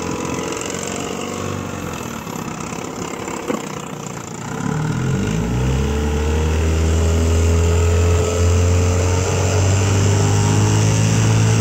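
1969 Johnson 6 hp outboard, a two-cylinder two-stroke, running at low speed, then throttled up about four or five seconds in: the revs rise and the engine holds a steady, louder running speed as the boat gets underway.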